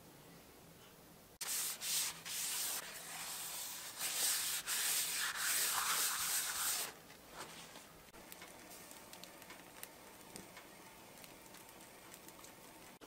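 Paper towel rubbing finish into the inside of a turned wooden bowl: brisk scrubbing strokes that start about a second and a half in and stop about seven seconds in. After that, only faint scattered ticks.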